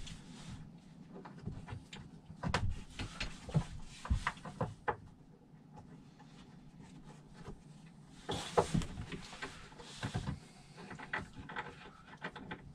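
Scattered knocks, clicks and rubbing as the sections of a reclining loveseat are handled behind its back, bolts being fed through holes to join the pieces. The loudest knock comes a little past halfway.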